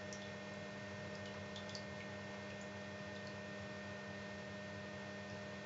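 Steady low electrical hum, with a few faint ticks and drips of water in the first couple of seconds.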